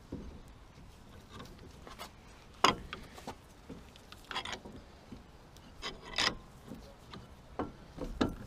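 Scattered scrapes, clicks and knocks of hand tools working a front brake caliper while its piston is pushed back into the bore, with one sharp knock about two and a half seconds in.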